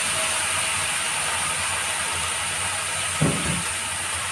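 Food sizzling steadily in a hot wok as sliced cabbage is tipped in from a colander, with a single knock about three seconds in.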